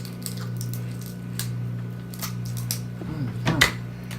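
Close-up eating sounds from crab legs: wet mouth smacking and chewing clicks, scattered through, over a steady low hum. About three seconds in there is a brief low vocal sound, followed by the loudest smack.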